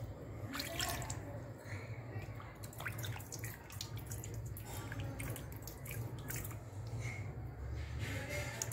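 Hands washing in a plastic tub of water, with small splashes and drips as they rub together in the water.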